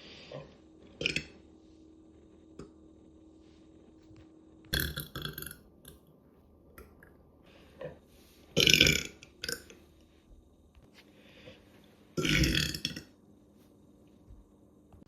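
A person forcing out a series of short deliberate burps. There are three loud ones, about five, nine and twelve and a half seconds in, each under a second long, and two smaller ones near the start.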